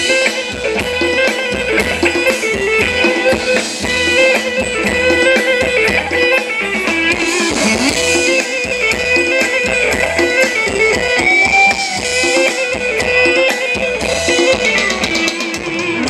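A band playing an instrumental passage of a Thai ramwong dance song: a guitar melody over a drum kit with a steady beat.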